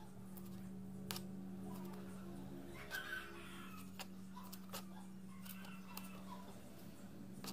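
A kitchen knife cutting through boiled beef onto a plastic cutting board, with a few sharp clicks as the blade meets the board. Short animal calls, chicken-like, come from the background about three and six seconds in, over a steady low hum.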